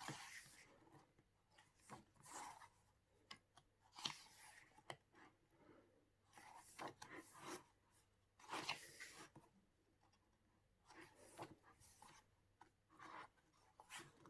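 Faint rustling and sliding of paper as the pages of a photo book are turned and handled, coming and going irregularly with quiet gaps between.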